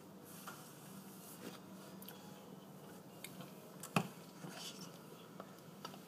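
Quiet room tone with a faint steady hum and scattered light clicks, one sharper click about four seconds in.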